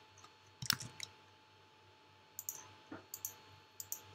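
Scattered key clicks on a computer keyboard as text is copied and pasted: about half a dozen short presses, one early, then a quiet second and a half before a loose run of presses.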